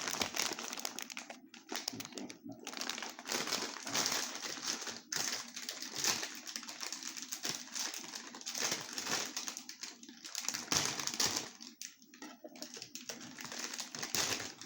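Plastic snack bag of Mac's pork rinds crinkling and crackling as it is torn open and handled, in irregular rustling bursts with short pauses.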